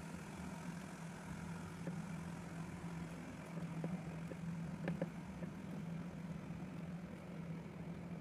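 A steady low machine hum, with a few faint clicks near the middle.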